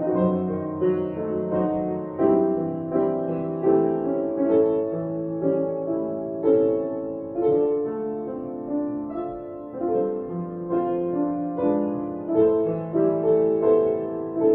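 Slow piano music, single notes and chords struck about once a second.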